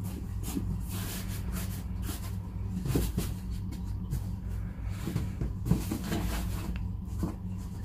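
Rustling and brushing of an old cloth shirt being pulled and stretched over a cardboard box, with scattered light knocks against the box, over a steady low hum.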